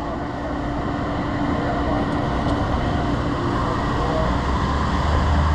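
A True two-door commercial refrigerator's condensing unit runs just after being plugged in, with a steady hum and whir. Right at the end a deeper, louder hum comes in as the replacement compressor starts.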